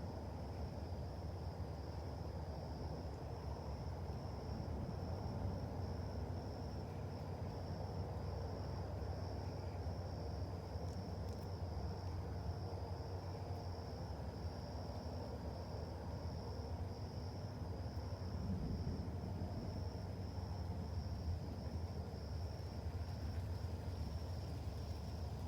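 Crickets chirping in a steady high pulsing chorus, over a continuous low rumble.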